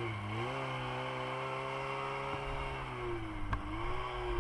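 Snowmobile engine running steadily at low revs, its note stepping up slightly just after the start and dipping about three seconds in, with a faint single click near the end.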